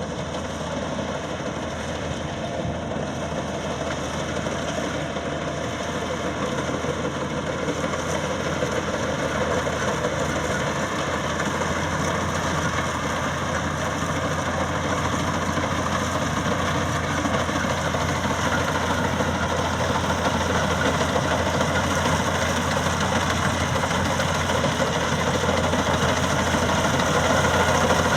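Maxxi Bimo 102 Top combine harvester running steadily, its engine and machinery making a continuous hum that grows gradually louder.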